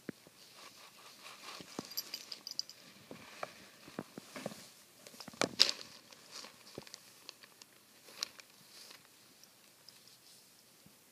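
Irregular rustling, scuffing and small clicks of a blanket being bitten and pawed by a Savannah cat. The loudest is about halfway through, and the sounds thin out near the end.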